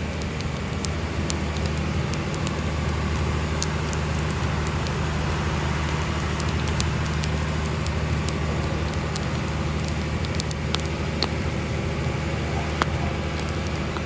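Long wood fire burning, with scattered sharp crackles and pops over a steady hiss, and a steady low mechanical hum underneath.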